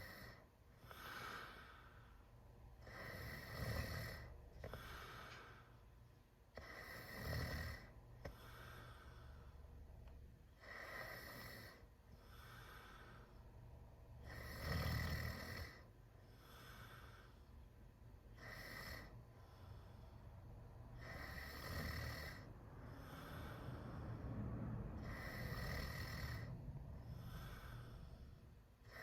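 A teenager snoring through a wide-open mouth, in a steady rhythm of one snore about every four seconds, with softer breaths in between.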